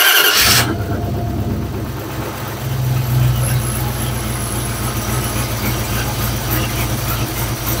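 A carburetted 1976 Dodge CruiseAir motorhome engine, just started cold after two pumps of the gas pedal. It runs loud for the first half-second, then settles into a steady low idle.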